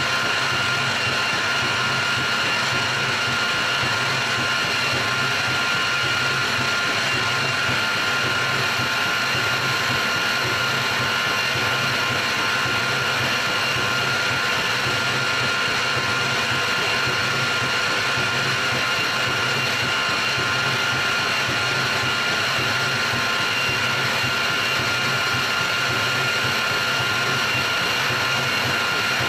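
CNC milling machine spindle running at about 3,000 RPM, its end mill cutting a pocket into a spindle pulley on a spiral toolpath. It is a steady, even machining noise with a constant high whine that does not change.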